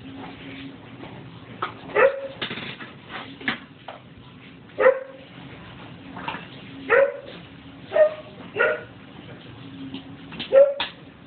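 Dog giving short, sharp yelping barks, about seven loud ones a second or two apart with fainter ones between, as forceps pick maggots from its wound.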